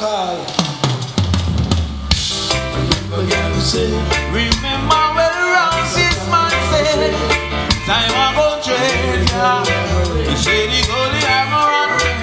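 Reggae-style music: a drum kit with crisp snare rimshots over a heavy bass line, starting about a second in.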